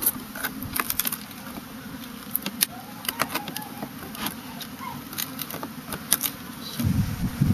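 Package of honeybees buzzing with a steady low hum, over scattered clicks and knocks from the package box being handled as the queen cage is pulled out. A loud low rumble of wind on the microphone comes in near the end.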